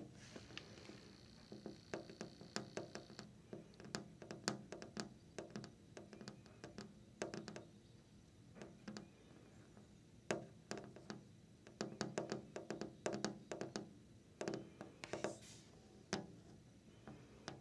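Long fingernails tapping on a window, quick runs of sharp clicks broken by short pauses.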